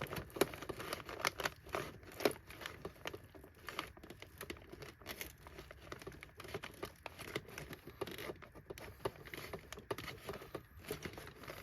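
Vacuum bag rustling and crinkling while it is handled and its collar is pushed onto the inlet in the bag chamber, with irregular small clicks and taps throughout.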